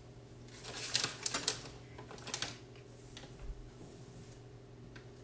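A metal box grater being handled at a kitchen counter: a quick run of clicks and scrapes about a second in, and a shorter run a second or so later.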